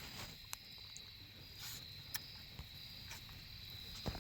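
Faint, steady cricket chirping, with a few scattered small clicks and rustles.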